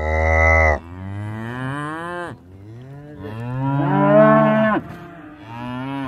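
A cow mooing: a run of about four long moos in a row, each dropping in pitch as it ends. The loudest moo comes about four seconds in.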